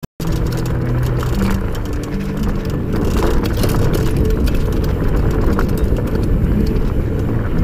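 Fat bike rolling fast downhill over a loose gravel trail: wide tyres crunching and humming on the stones, with scattered clicks and rattles and a heavy wind rumble on the camera microphone.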